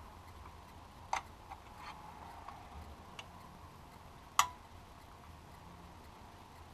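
Small plastic clicks and taps as a gauge needle is pressed onto the shaft of a GM instrument cluster's stepper motor. The loudest, sharpest click comes a little over four seconds in.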